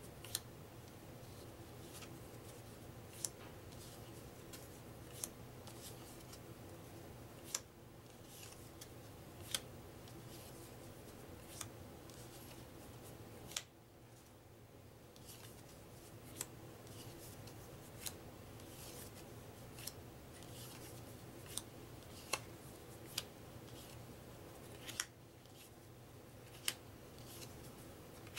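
Paper trivia cards being slid off the top of a small stack one at a time: soft swishes of card stock with a crisp snap of card edges roughly every second or so, about twenty in all.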